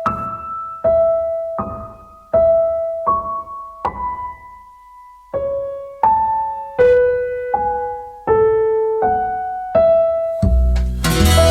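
A slow piano melody played one note at a time, each note struck and left to ring away. Near the end, a fuller accompaniment with a deep bass comes in underneath.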